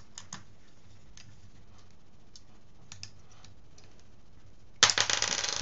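Small clicks of standoffs and screws being handled and fitted on a carbon-fibre quadcopter frame, sparse and faint at first, then a loud, rapid rattle of clicks lasting about a second near the end.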